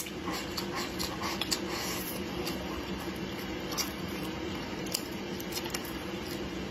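Close-up chewing of a mouthful of cured pork belly with fermented tofu: wet, squishy mouth sounds over a steady low hum. A sharp click comes at the start, then small clicks scattered through.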